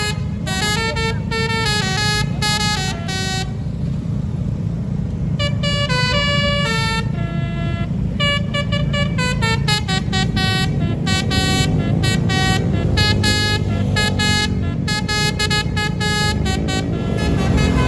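Bus's basuri telolet musical horn playing a quick melody of short notes over a steady low rumble. The tune breaks off for about two seconds soon after the start, then plays on.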